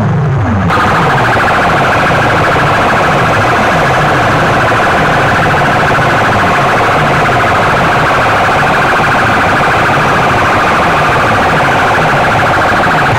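A rack of horn loudspeakers blasting an electronic siren-like effect at very high volume. A fast warbling tone cuts in under a second in and carries on over a low tone that falls again and again in quick sweeps.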